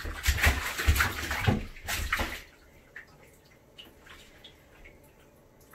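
Bathwater splashing and sloshing in a tub in a run of uneven bursts, stopping about two and a half seconds in; after that only faint small ticks.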